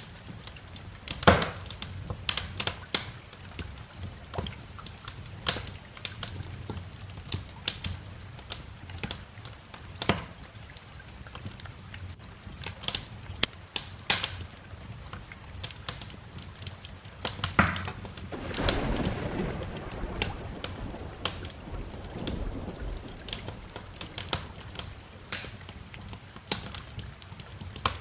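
Wood fire crackling, with irregular sharp snaps and pops over a steady rain hiss. About two-thirds of the way in, a low roll of distant thunder swells and fades over a few seconds.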